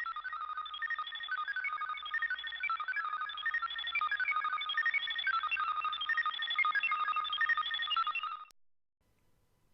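A short electronic melody of quick, high-pitched notes, like a ringtone or intro jingle, that stops abruptly near the end.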